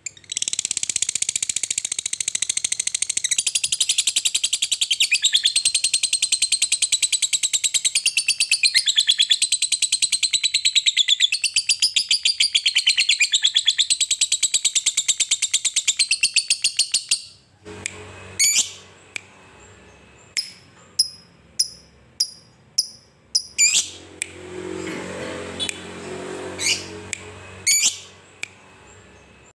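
Lovebird giving a long, unbroken ngekek: a rapid, high-pitched chattering trill that breaks off after about seventeen seconds. Scattered short, sharp chirps follow. The long ngekek is the continuous song that keepers prize in a 'fighter' lovebird in full voice.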